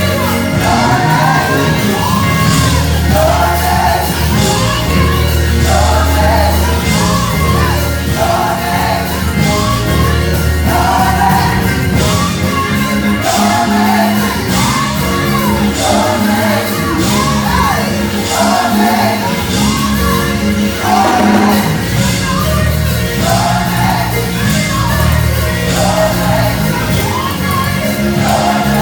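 Gospel choir singing over a live band, with bass and drums, in repeated sung phrases.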